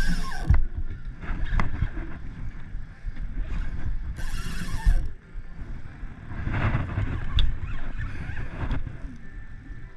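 Wind buffeting the microphone and water lapping at a small boat, with two short bursts of high hiss, one at the start and one about four seconds in.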